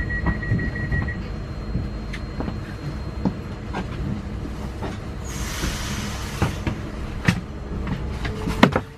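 Interior of a Newag Impuls 2 electric multiple unit standing at a platform as it gets ready to depart. A high beeping tone stops about a second in, followed by clicks and knocks, a short hiss of air around the middle and two sharp knocks near the end, over a low steady rumble.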